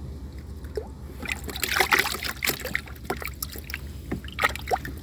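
Water splashing and sloshing in irregular bursts, heaviest from about a second in and again near the end, over a steady low wind rumble.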